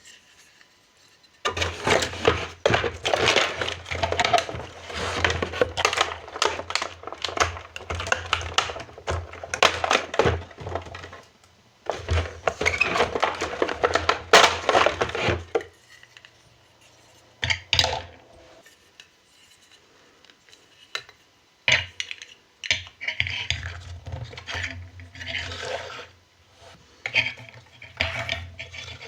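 Small plastic toy pieces being handled, clicking and clattering against each other with some rustling. It is busy for the first half, then after a pause there are fewer, separate clicks.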